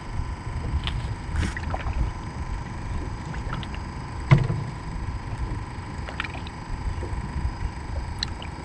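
Water moving against the hull of a small fishing boat, with a low, uneven rumble, scattered light clicks and a single sharper knock about four seconds in.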